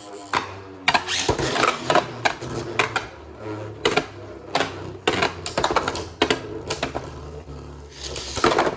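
Two Beyblade Burst spinning tops whirring in a plastic stadium, clashing with many sharp, irregular clicks and knocks as they hit each other.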